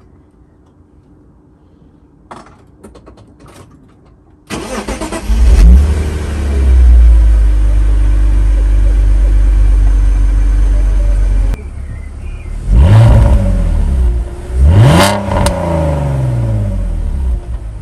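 BMW Z4 3.0's straight-six engine started after a few small clicks, catching with a loud burst and running at a steady high level, then revved up and down three times near the end. It is being run to check a misfire after its ignition coil packs were swapped.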